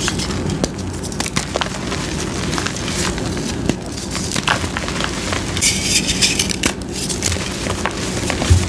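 Blocks of reformed gym chalk being crushed and crumbled by hand into powder: dry crunching and crackling with many small sharp snaps. A short burst of hiss about six seconds in.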